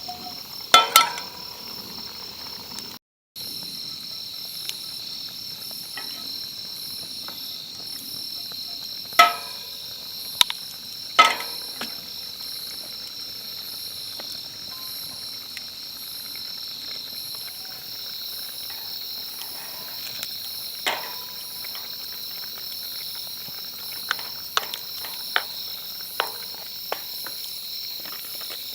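Outdoor insect chorus: a steady, pulsing high-pitched trilling of insects. A few sharp clicks and knocks sound over it, a cluster of them near the end.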